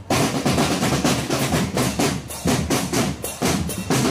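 Marching drumband's snare drums and bass drums playing a fast, dense rhythm together.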